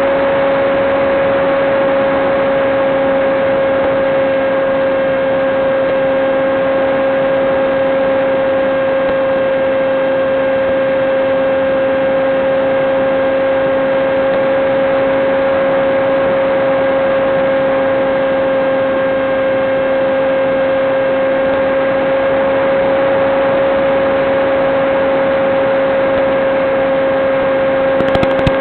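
Electric motor and propeller of a Teksumo flying wing running at a constant throttle, giving a steady, unchanging whine over a rushing hiss, heard through the FPV video link's narrow, thin-sounding audio.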